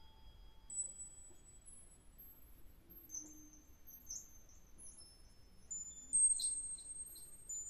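Yamaha MODX+ synthesizer playing an ambient patch: sparse, very high chime-like notes that ring on and overlap. A short warbling figure comes about three seconds in, and a louder cluster of notes just after six seconds.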